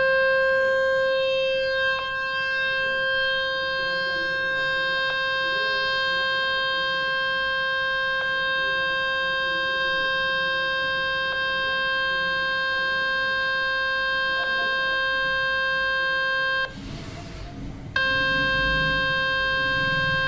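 Steady mid-pitched buzzing tone rich in overtones, played through a speaker by a speaker-cleaner tool to shake dust and water out of the grille. It cuts out for about a second near the end, then resumes.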